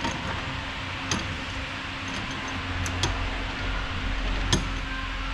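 A few sharp metallic clicks, the loudest near the end, as a steel bench vise's handle is worked and a rocker arm in a bearing press tool is set between the jaws. A steady low hum runs underneath.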